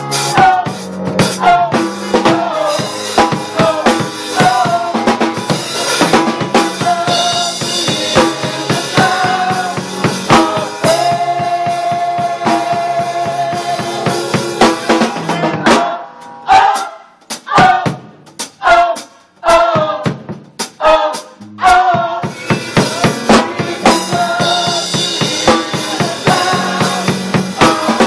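Gospel choir singing with a live band and drum kit. About halfway through, the band drops to short, spaced hits for several seconds, then the full sound comes back in.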